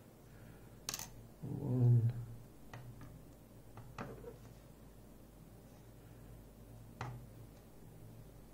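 A sharp click of a small metal lock part about a second in, likely a key pin coming out of the cylinder during disassembly, followed by a few fainter clicks of pins and tools being handled.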